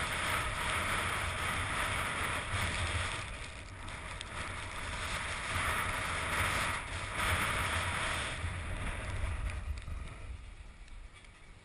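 Wind buffeting the camera microphone over the hiss of sliding down a groomed ski slope, surging and easing several times, then dying away near the end as the rider slows.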